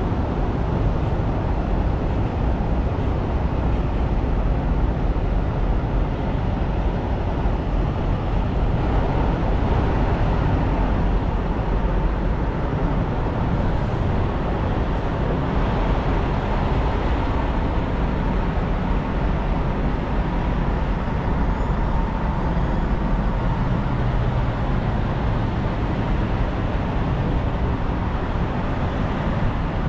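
Steady low rumble of idling diesel semi trucks, an even noise with no single event standing out.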